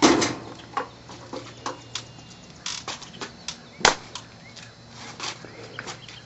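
Scattered light clicks and knocks from people handling a stainless gas grill, with one sharper click about four seconds in.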